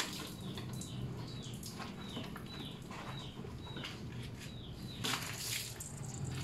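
A bird chirping over and over, short falling chirps about twice a second. About five seconds in there is a brief splash of water as water is poured from a dipper over the scooter.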